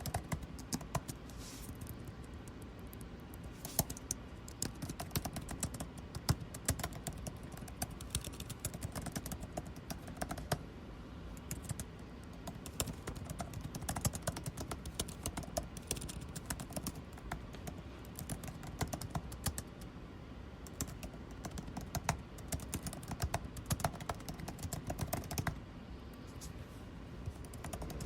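Computer keyboard typing, irregular bursts of key clicks, over a steady low hum of air conditioning.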